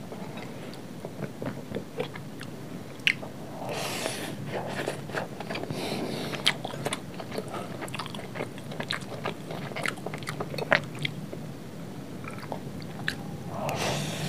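Close-miked chewing of mouthfuls of fried rice, full of small crunches and wet mouth clicks, with a metal spoon scraping the glass plate now and then.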